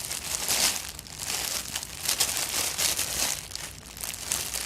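Plastic packaging crinkling in uneven bursts as a squishy toy is handled close to the microphone.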